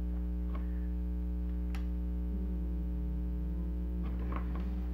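Steady electrical mains hum, with a few small clicks and taps from fingers handling the toy's wiring and plastic parts.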